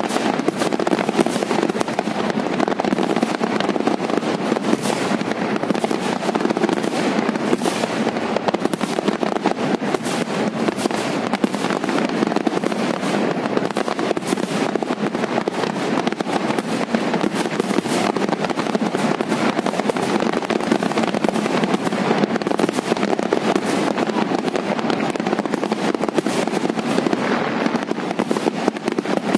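Aerial fireworks display: a continuous barrage of shell bursts, many bangs following one another rapidly and overlapping with no pause.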